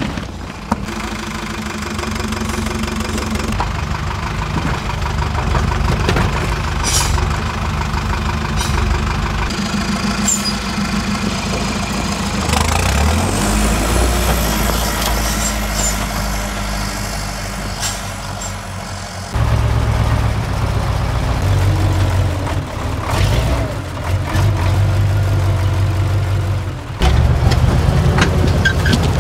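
Off-road trial truck engine running under load and revving, rising in pitch about twelve seconds in, with a few sharp knocks. The engine note changes abruptly twice, near the middle and near the end.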